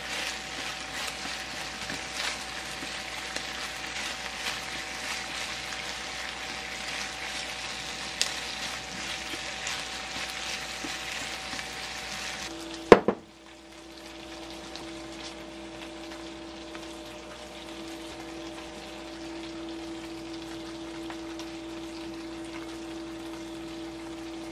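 Chicken pieces sizzling and crackling as they fry in a non-stick frying pan, stirred with chopsticks. About halfway through there are two sharp clicks, and the sizzling gives way to a quieter steady hum with a steady tone.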